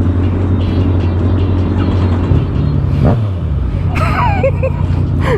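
Motorcycle engine running steadily, then about two seconds in its pitch rises briefly and it cuts out about a second later: the bike dying after the rider's toe accidentally touched a control as she put her foot down. A gasp follows near the end.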